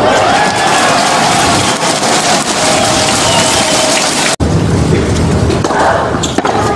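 Crowd applauding a won tennis point. The applause cuts off abruptly about four seconds in. Then come a couple of sharp racket strikes on a tennis ball as the next rally starts.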